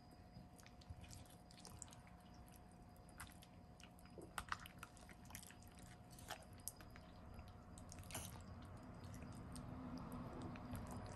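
Faint wet squishing of bare hands kneading a spice-paste marinade into a raw whole chicken, with a few sharper clicks around the middle.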